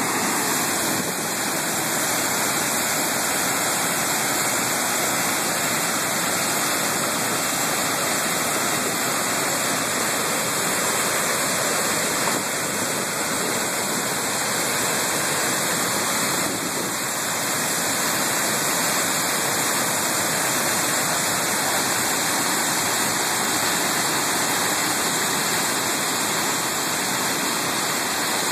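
Big Sioux River waterfall in high flood: heavy brown water pouring over rock ledges into churning white water, a steady loud rush without a break.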